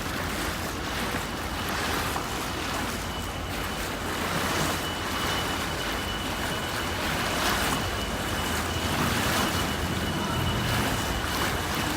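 Electric river tour boat under way: a steady low hum with a faint, steady high-pitched whine over a wash of water and wind noise.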